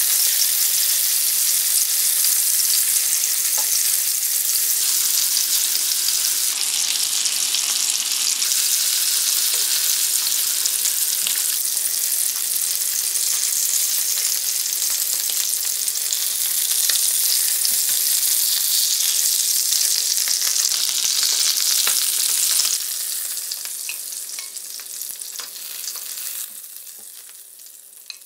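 Salmon fillets sizzling in hot oil in a frying pan as they are turned with metal tongs. The steady sizzle drops away sharply about three-quarters of the way through and fades toward the end.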